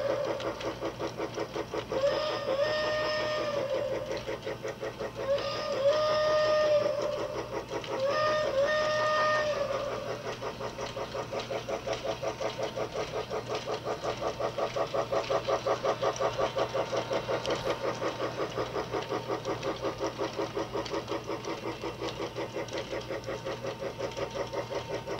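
Toy train set running around its plastic track with a fast, even chugging rhythm. In the first ten seconds its electronic train-whistle sound effect plays three times, each a short two-note rising-and-falling toot.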